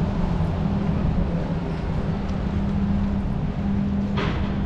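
City street traffic: a steady low hum and rumble of a motor vehicle running, with a short hiss about four seconds in.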